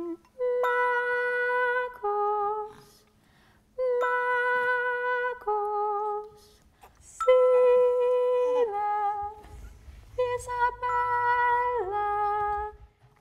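A woman humming a slow, simple melody in four phrases. Each phrase is a long held note that drops to a shorter, lower one.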